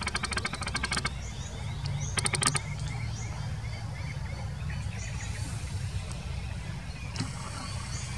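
Birds calling over a steady low rumble. A rapid rattling call runs for about the first second and comes again briefly about two seconds in, followed by scattered chirps.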